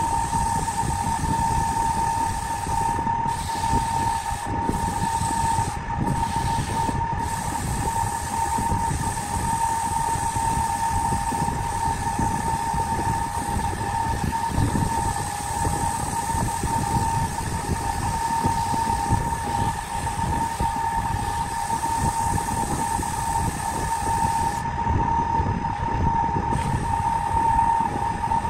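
Wood lathe running steadily, its electric motor giving a constant whine over a low rumble, with sandpaper held against the spinning wooden vase.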